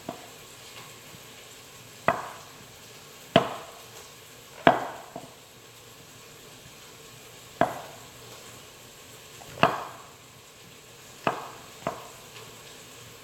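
Kitchen knife slicing mushrooms on a cutting board: slow, irregular knife strokes hitting the board, about eight over a dozen seconds.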